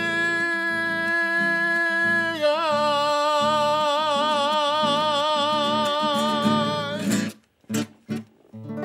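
A man sings the song's last word as one long held note over strummed acoustic guitar. About two seconds in he moves to another note with wide vibrato, and the voice stops about seven seconds in. A few last guitar strokes and a ringing final chord end the song.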